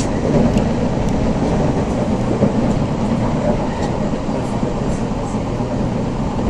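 Steady rumble of a Z 5600 double-deck electric multiple unit running at speed, heard from inside the passenger car, with a few faint clicks.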